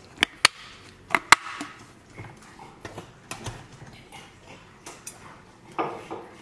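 Kitchen food-prep handling: four sharp clicks in two quick pairs, about a second apart, as a food-storage container is handled and closed. Then quieter taps and light scraping while cooked rice is scooped from a rice cooker into a glass container, with a short clatter near the end.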